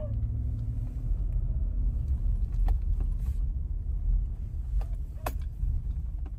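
Car driving over an icy, snow-covered driveway, heard from inside the cabin: a steady low rumble of engine and tyres, with a few short sharp clicks.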